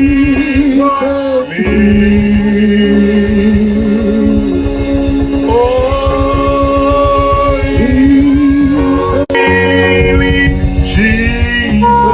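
Live worship music: a voice sings long held notes with vibrato over a steady band accompaniment. The sound drops out briefly about nine seconds in.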